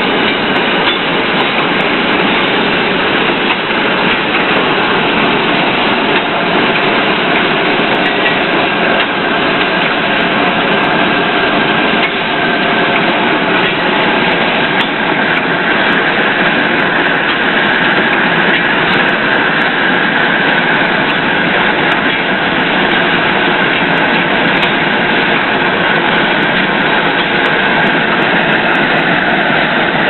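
Loud, steady din of running metal-working machinery and a gas-fired heating furnace, with no distinct separate events.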